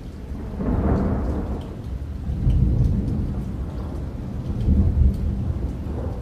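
Steady rain with rolling thunder. The low rumble swells about a second in and again around three and five seconds in, over a bed of rain hiss with scattered drop ticks.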